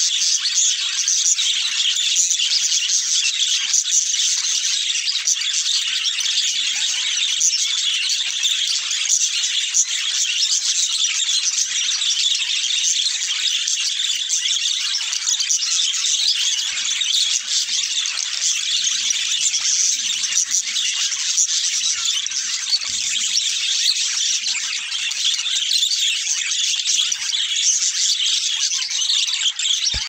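A flock of budgerigars chattering and warbling together in a steady, dense, high-pitched twitter.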